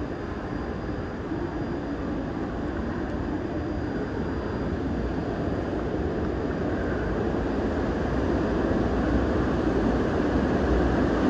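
Seoul Subway Line 2 train (car S5670, set 245) approaching through the tunnel and entering the station: a steady rumble that grows gradually louder throughout.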